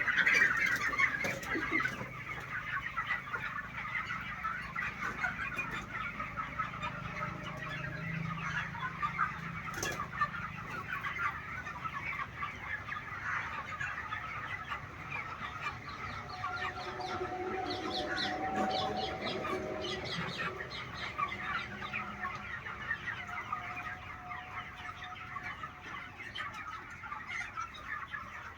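A large flock of chickens in a poultry shed, clucking and chirping together in a continuous dense chatter.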